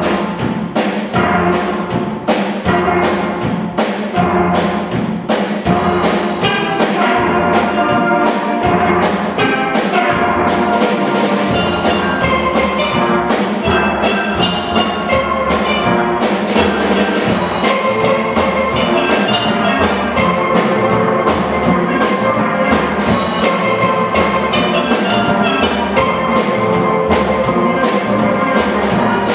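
A steel band of steel pans playing an up-tempo piece in a fast, steady rhythm, many ringing pitched notes over a drum kit.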